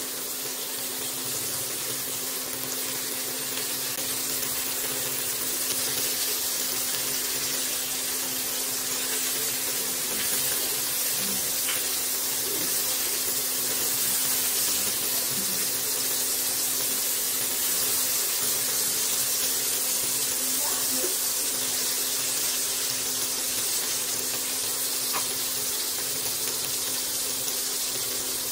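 Sliced sausage frying in olive oil in a nonstick wok: a steady sizzle, with a faint steady low hum beneath it.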